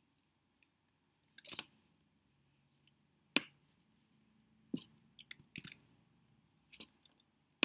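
Sharp, separate clicks and key presses at a computer, about eight spread out with quiet between, as code is selected and copied in a text editor.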